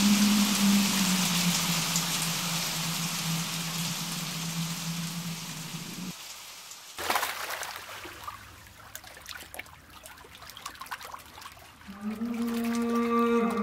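Ambient electronic soundscape: a hissing, rain-like wash over a low held tone, which cuts out about six seconds in. A faint crackling trickle follows, and near the end a held, wavering synth tone comes in.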